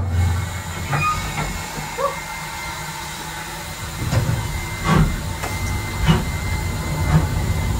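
Steam locomotive heard from inside the cab: a steady hiss and rumble of steam, with a few short metallic clunks and knocks.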